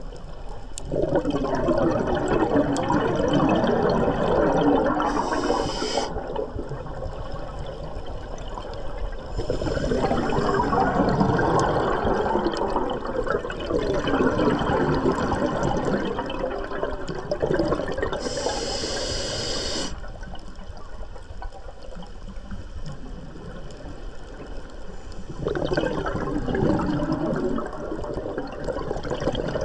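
Scuba diver breathing through a regulator underwater: long bursts of exhaled bubbles gurgling and rising, with twice a short hiss of air as the diver inhales through the regulator.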